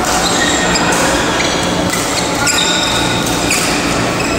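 Badminton hall sounds: shoes squeaking on the court floor and sharp racket strikes on shuttlecocks every second or so, over a steady low hum.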